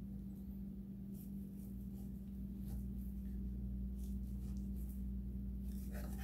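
Shun Hikari chef's knife slicing through beef short rib meat along the bone: faint, scattered scraping strokes of the blade over a steady low hum. The blade is working around an oddly shaped rib bone that keeps it from cutting straight through.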